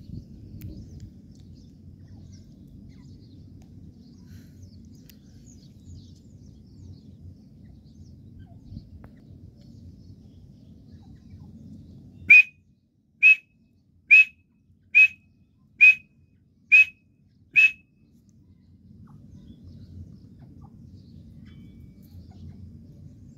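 A teetar (francolin) calling: seven loud, sharp, whistled notes about one a second, starting about halfway through. A faint low rumble runs before and after the calls.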